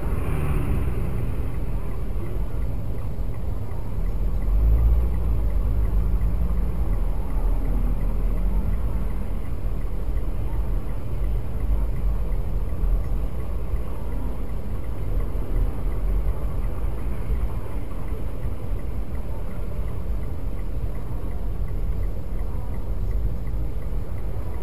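Steady low rumble of a car idling while stopped in traffic, heard from inside the cabin through a dashcam's microphone. A higher-pitched sound fades out in the first second.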